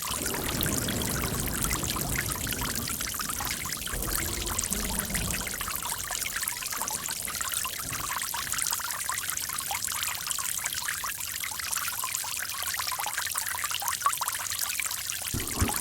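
Running water, a steady even flow with a deeper splashing in the first few seconds.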